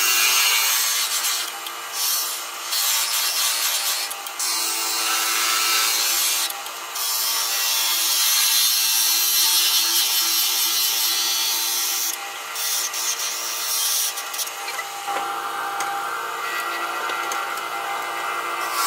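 Wood lathe running with a steady motor hum while a turning tool cuts a spinning wooden blank, a rough scraping hiss that breaks off briefly several times and turns lower and rougher near the end.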